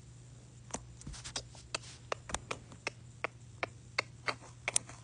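Irregular sharp clicks or taps, several a second, over a faint steady low hum.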